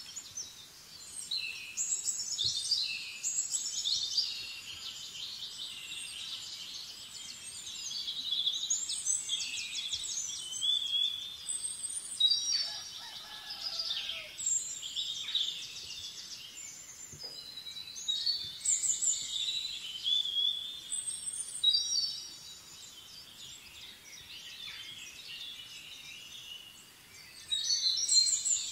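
Small birds chirping and trilling, many high calls overlapping almost without a break, with a quieter spell near the end before a fresh burst of calls.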